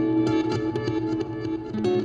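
Acoustic guitar fingerpicked solo, a quick run of plucked melody notes ringing over low bass notes.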